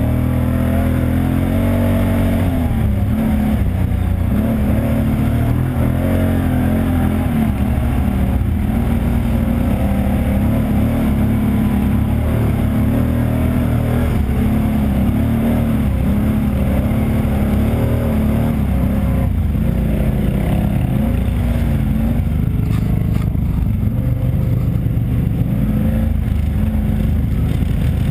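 ATV engine running hard while riding a trail, its pitch rising and falling again and again with the throttle.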